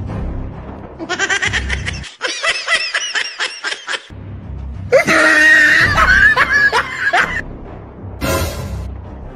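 Background music with a low beat. Over it, a burst of rapid laughter about a second in, then a louder, high-pitched shriek of laughter about five seconds in, and a short hiss of sprayed water near the end.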